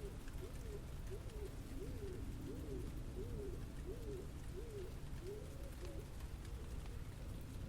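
A pigeon cooing: a string of short calls that each rise and fall, about one and a half a second, breaking off about six seconds in, over a steady low city rumble.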